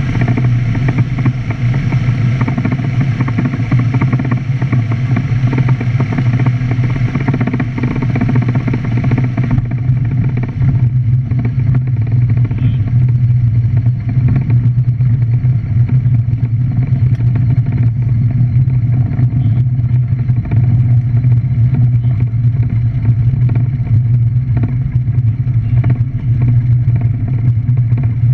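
Light aircraft's engine and propeller running steadily, heard from inside the cockpit as a loud, low drone. About ten seconds in the sound turns duller as its higher part falls away.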